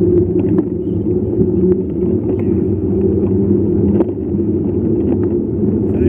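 Steady, muffled low rumble of a mountain bike rolling along asphalt, picked up by a camera mounted on the bike, with small clicks and rattles from the bike over the road surface.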